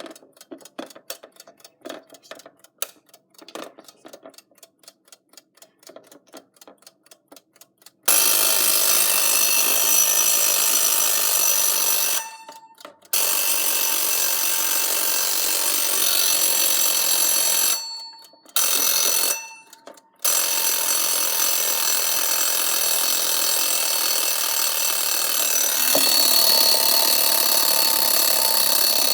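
Vintage 1950s Gilbert Reveille 40-hour wind-up alarm clock ticking steadily. About eight seconds in its alarm bell starts ringing loudly and continuously, cutting out briefly three times before ringing on.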